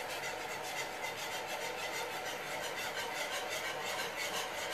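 Wire whisk scraping and stirring through a cream sauce in a frying pan, in a quick, even rhythm of about five strokes a second.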